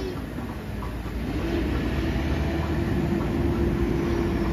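Steady motor hum over a low rumble. It rises slightly in pitch and gets louder about a second and a half in.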